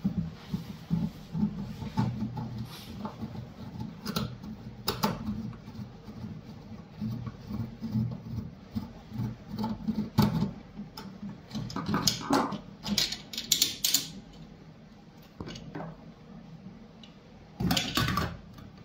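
Screwdriver turning out the screws of a stainless-steel pool light face ring, with uneven low creaking and scattered sharp metal clicks. Near the end comes a short, louder clatter.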